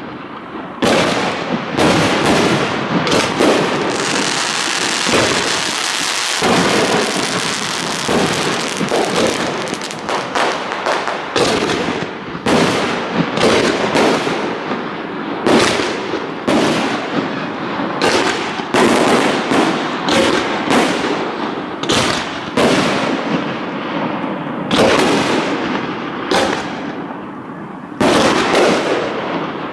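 Aerial fireworks shells bursting one after another in quick succession, many loud bangs with little pause between them. A few seconds in, a steady hiss fills the gaps between the bangs for several seconds.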